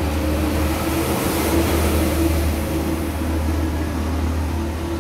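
A steady, loud, low mechanical hum with a constant drone over a faint hiss.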